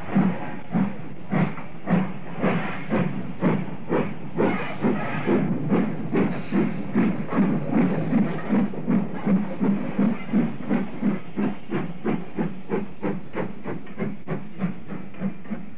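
Steam locomotive working a train away, its exhaust beats chuffing in a regular rhythm that quickens from about two beats a second to about three, over a continuous hiss of steam.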